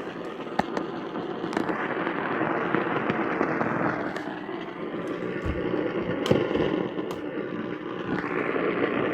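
Radio static: a hissing rush that swells and fades, broken by several sharp crackles and pops.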